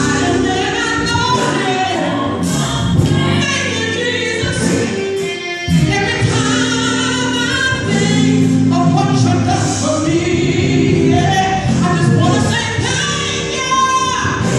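A woman singing a gospel song into a handheld microphone, holding long notes that bend and waver in pitch.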